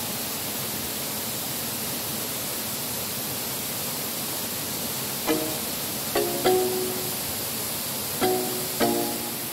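Steady rush of an artificial waterfall pouring into a rock pool. About five seconds in, background music of plucked string notes comes in, a few notes at a time, louder than the water.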